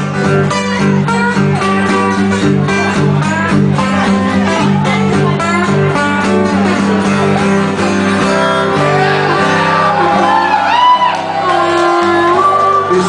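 Live acoustic band music: guitars strumming over a steady bass line, with shouted vocals.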